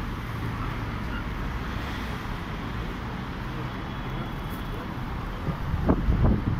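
City street ambience: a steady hum of road traffic from the cars passing alongside. A few low thumps on the microphone come near the end.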